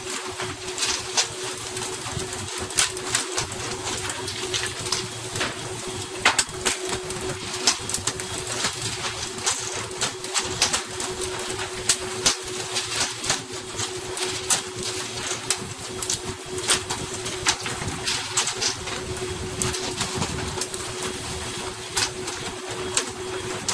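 Tuna slapping and flapping on a boat deck as they are landed on poles: irregular sharp slaps and taps, several a second, over a steady hiss of spraying water and a constant mechanical hum.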